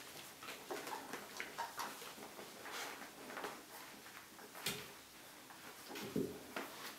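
Border Collie puppies scrambling over their mother on a blanket in a wooden whelping box: faint rustling and scuffling with small knocks, and two louder bumps a little before five seconds and around six seconds in.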